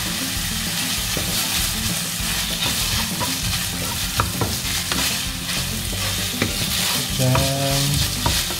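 Minced chicken, onion and garlic sizzling in a stone-coated nonstick pan while a wooden spatula stirs and scrapes through it, with a few light knocks of the spatula against the pan.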